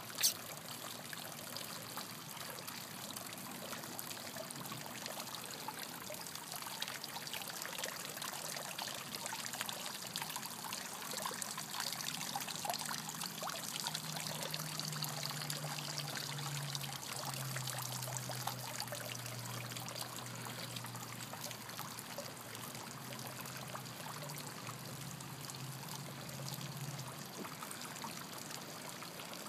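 Swimming-pool water trickling steadily. A low steady hum comes in about halfway through, drops a little in pitch, and stops a couple of seconds before the end.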